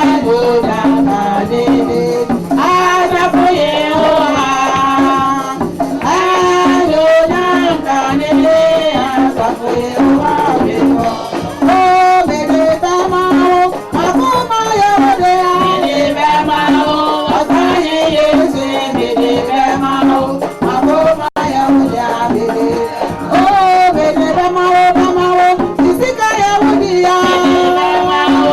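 Live church music played for the offering: a band with singing voices and a steady shaken percussion beat, loud and continuous.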